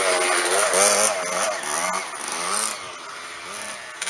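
Dirt bike engine revving hard right beside the camera as it climbs the hill, its pitch rising and falling with the throttle, then fading away after about three seconds.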